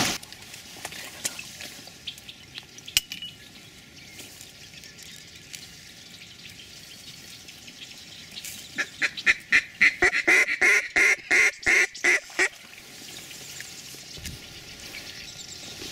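A fast series of loud duck quacks, about four a second for nearly four seconds, starting a little past halfway.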